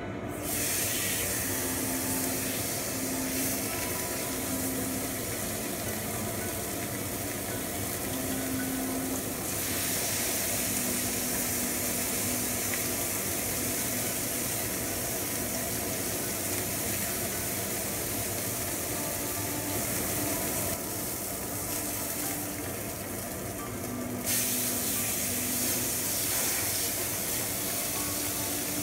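Wagyu skirt steak searing on a ripping hot griddle pan: a loud steady sizzle that starts the moment the meat goes down, swelling louder again a few seconds before the end.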